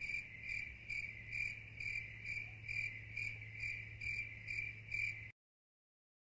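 Crickets chirping in an even rhythm, about two to three chirps a second, over a low hum, cut off abruptly about five seconds in.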